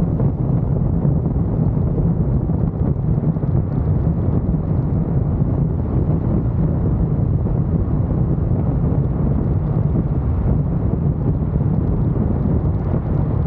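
Steady deep rumble of wind buffeting the microphone, mixed with road noise from a car driving along.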